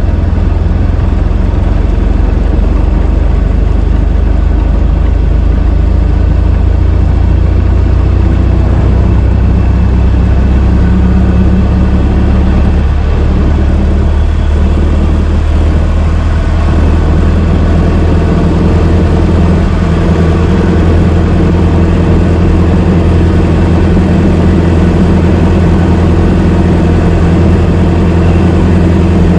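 1926 Ford Model T's four-cylinder flathead engine running steadily while the car is driven, its note wavering around the middle and settling at a slightly different pitch.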